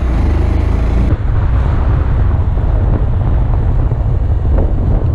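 Honda Grom's small single-cylinder engine running as the motorcycle rides along, mixed with low wind rumble on the camera's built-in microphone.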